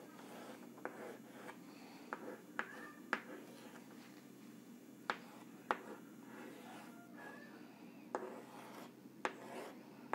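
White chalk drawing on a chalkboard: light scraping strokes broken by a series of sharp taps as the chalk strikes the board, at uneven intervals.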